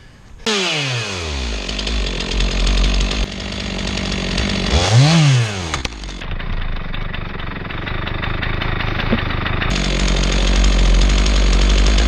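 Stihl chainsaw running at full throttle, cutting the back cuts of a key-notch felling cut through a tree trunk. Its pitch falls over the first second or so as it starts cutting, then rises and drops back once around five seconds in.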